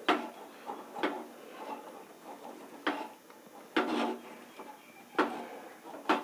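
A ladle scraping and knocking in a kadai as thick rice-flour dough is stirred and turned over, in about six separate strokes a second or two apart. The dough is being cooked down until it comes away from the pan without sticking.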